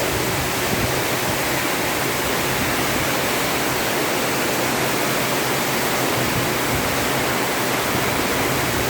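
Heavy tropical rain pouring down in a steady, dense downpour, an even unbroken hiss.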